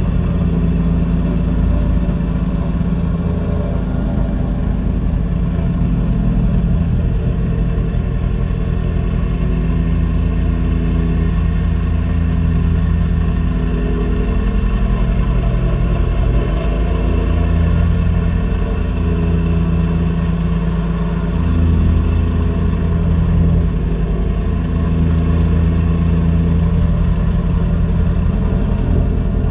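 Mini excavator engine running steadily, its note shifting a little now and then.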